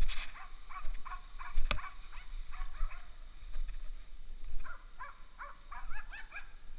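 Russian-European Laika barking in quick runs of about three barks a second, with a short pause midway. One sharp crack, like a snapping twig, comes just under two seconds in.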